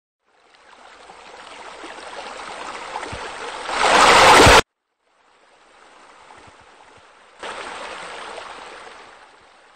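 Running, splashing water from a pool's rock waterfall and bubbler. It swells and cuts off abruptly about halfway through, then fades back in, jumps louder, and fades out near the end.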